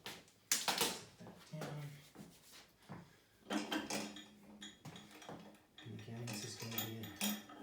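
Metal grip-training gear (weight plates and loading pin) clinking and knocking, with sharp clicks about half a second in and busier clatter over a low buzzing tone in the second half.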